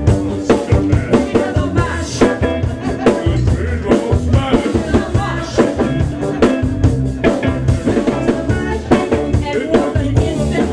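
Live band playing with a steady beat on drum kit, electric bass and guitar.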